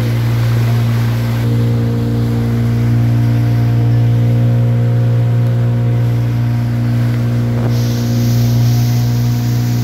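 Motorboat engine running at a steady speed, a constant low hum. A hiss joins it about eight seconds in.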